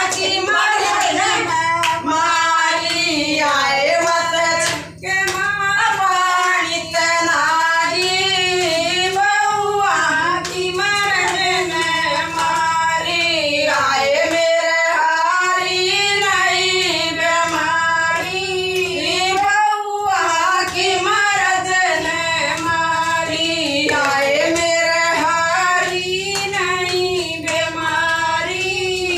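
Women singing a bhajan, a Hindu devotional song, with hand clapping keeping time.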